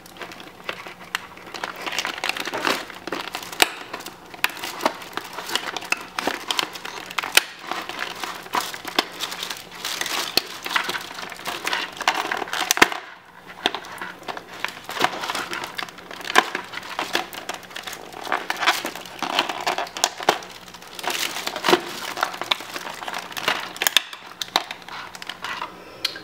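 Toy packaging crinkling and crackling in irregular bursts of clicks and rustles as a doll is worked free of its box, with a brief lull about halfway through.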